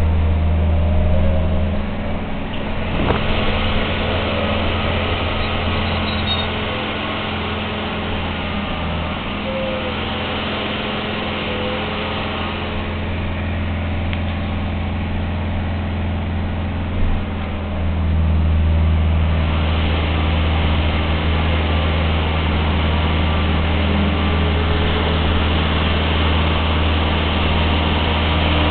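Articulated trolleybus heard from inside while moving: a steady low electric hum under road and tyre hiss. The hum drops back after the first couple of seconds and grows strong again about two-thirds through, with a single knock just before.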